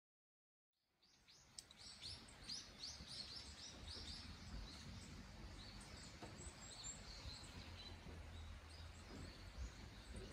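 Faint outdoor ambience: a small bird chirping repeatedly, quick high chirps about two a second at first, then more sparsely, over a low steady rumble. The sound fades in after about a second of silence.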